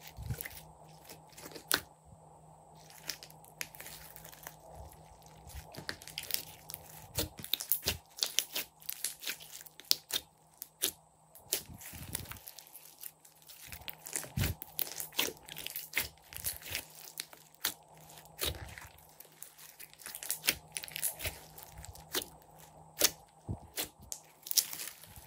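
Hands squishing, pressing and folding a large mass of glossy slime, making irregular sticky clicks and pops, at times several a second.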